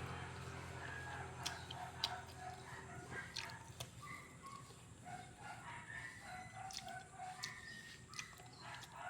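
Chickens calling in a string of short, pitched notes, with scattered sharp clicks.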